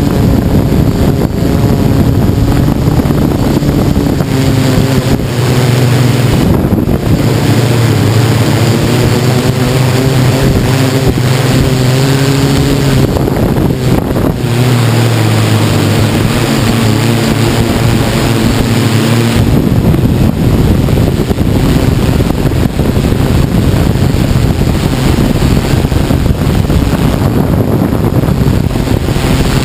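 Tarot 690S hexacopter's electric motors and propellers whirring, picked up by a camera mounted on the craft, with wind rushing over the microphone. The motor hum shifts in pitch through the middle, and a little before two-thirds of the way in it sinks under the wind noise.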